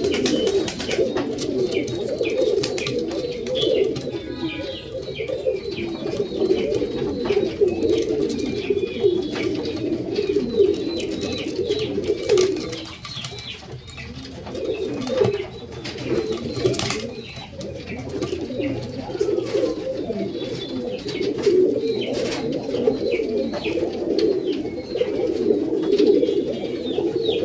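Domestic tumbler pigeons cooing continuously, many low coos overlapping, with scattered small clicks and knocks. The cooing eases briefly about halfway through.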